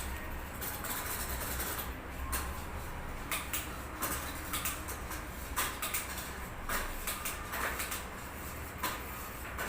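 Scattered light clicks and taps from handling a bicycle hub's parts while grease is packed into its bearings, over a steady low hum.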